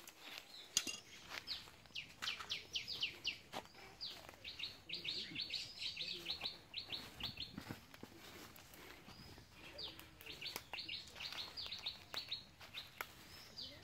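Small birds chirping in two long runs of quick, short, high notes that slide downward, with a few sharp clicks and rustles of handling mixed in.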